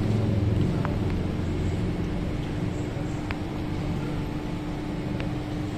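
A steady low mechanical hum with a few faint, sharp ticks.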